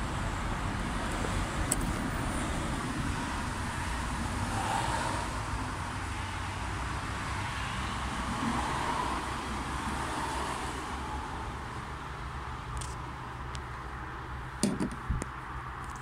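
Steady background road-traffic noise, with a few small sharp clicks near the end from fuse pliers pulling a mini blade fuse out of the car's fuse box.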